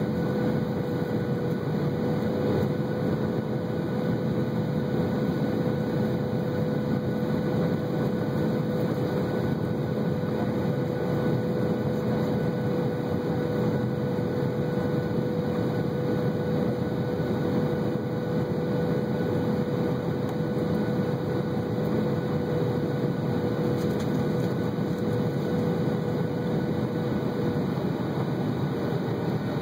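Cabin noise of a Boeing 737-800 on final approach, heard from a window seat over the wing: a steady rush of air and engine noise with a steady whine from its CFM56 turbofans. The whine drops a little in pitch near the end as the aircraft nears touchdown.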